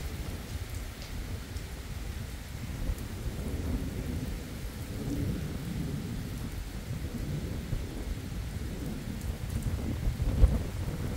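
Rain falling steadily on an asphalt road during a thunderstorm, with thunder rumbling low underneath. A short, loud thump comes near the end.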